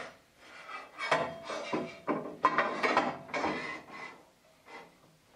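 Aluminium rip fence of a Hammer N4400 bandsaw being handled and repositioned on its fence head and steel rail: a run of irregular rubbing, sliding and knocking sounds, dying away after about four seconds.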